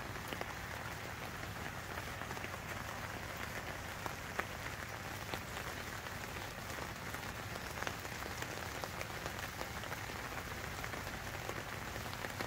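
Steady rain falling on a heavy-duty tarp shelter overhead and on the wet ground around it: an even hiss with scattered sharper taps of single drops.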